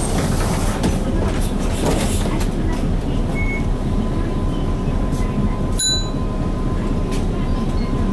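Interior running noise of an Isuzu KC-LV380N one-step diesel city bus moving slowly in traffic: a steady low engine rumble, with a sharp click about six seconds in.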